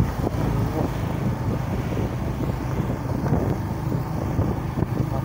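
Steady low engine drone of vehicles on the move, with wind rushing over the microphone.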